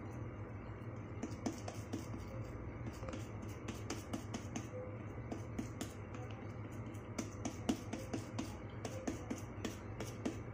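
Fingers patting and pressing soft pumpkin-and-jaggery dough flat on a damp cloth: light, irregular pats and taps, several a second, over a low steady hum.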